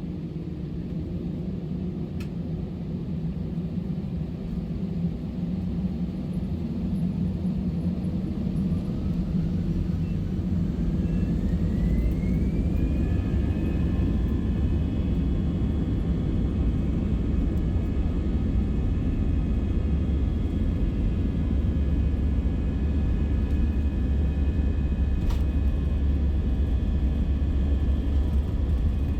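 Airbus A320's jet engines spooling up to takeoff thrust, heard from inside the cabin: a whine rises in pitch about ten seconds in and then holds steady over a low rumble that grows louder and then stays level.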